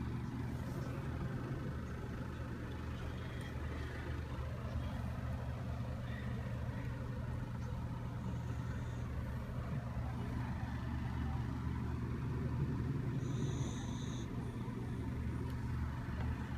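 Dog snoring: a low, steady rumbling.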